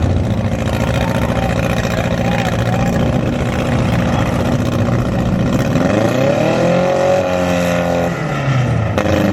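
Several compact demolition derby cars' engines running together, one revving up and dropping back between about six and eight seconds in.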